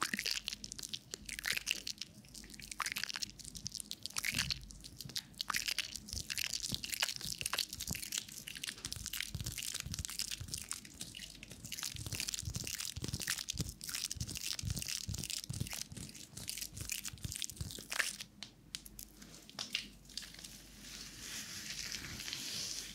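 Wet, soapy hands rubbing close to the ears of a 3Dio binaural microphone, making many small crackling, popping and squelching sounds. About 20 seconds in this changes to a wet wipe being rubbed, a softer, even hiss.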